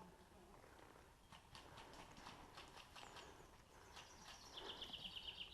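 Near-silent outdoor quiet with a few faint, irregular soft clicks. From about four and a half seconds in comes a quick high trill of about ten notes a second from a small bird.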